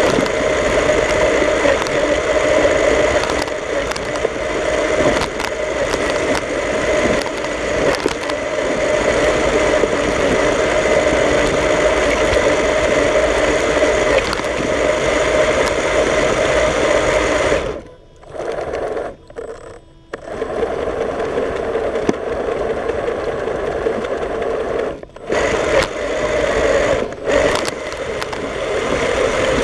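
Remote-control snow-plough vehicle running, its motor and gears whirring steadily as it pushes a plastic shovel blade through snow. The whirr cuts out briefly a few times about two-thirds of the way through, then resumes.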